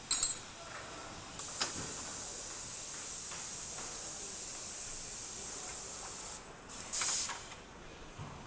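Compressed air from pneumatic assembly equipment on a car production line. A short, sharp blast of air comes right at the start, then a steady hiss lasts several seconds. A second loud blast comes about seven seconds in.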